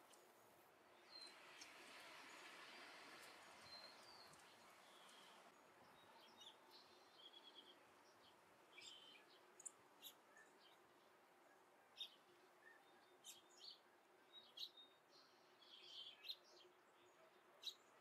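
Quiet scene of a Steller's jay feeding at a bird feeder: scattered sharp taps of its bill pecking in the feeder tray, mixed with faint short high bird chirps. A soft rush of noise swells over the first few seconds.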